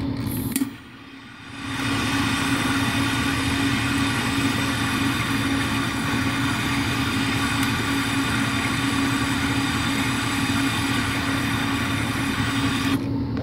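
Hand-held butane torch: a click about half a second in, then the flame hissing steadily until it cuts off suddenly near the end. A steady low hum runs underneath.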